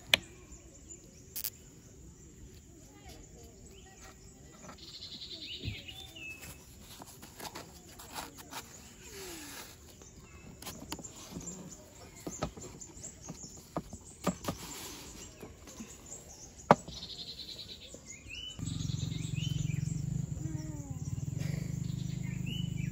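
Wooden lantern box and its sliding lid handled on a table: scattered light knocks and clicks, with birds chirping now and then. Near the end a steady low hum sets in.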